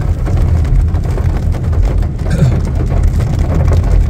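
A sedan driving in heavy rain: a steady low rumble of engine and tyres on the wet road, with the hiss of rain and spray over it.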